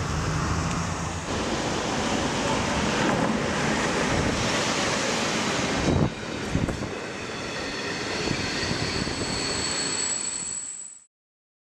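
Street traffic noise, then a passenger train running past a station platform with a dense rail rumble and a thin high whine coming in late. The sound fades out to silence near the end.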